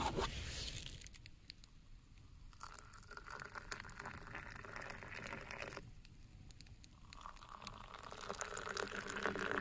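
Hot water poured from a steel pot into a steel cup of instant coffee. It pours for about three seconds, stops, then starts again about seven seconds in and grows louder toward the end.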